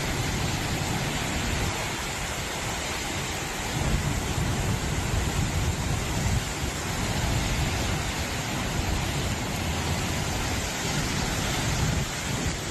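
Derecho windstorm: a steady, dense rush of wind-driven rain, with stronger low gusts coming and going.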